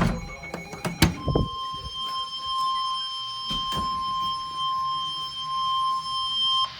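A couple of sharp knocks in the first second, then the NOAA Weather Radio 1050 Hz warning alarm tone, one steady high beep held for about five and a half seconds that cuts off abruptly. It signals that a warning broadcast follows.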